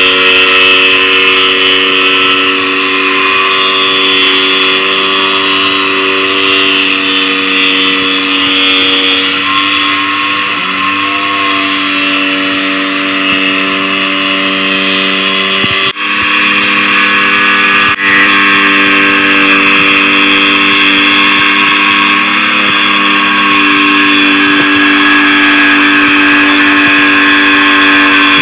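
Corded jigsaw running steadily as it cuts through plywood, its motor pitch sagging briefly under load about a third of the way in. There are two short breaks past the middle.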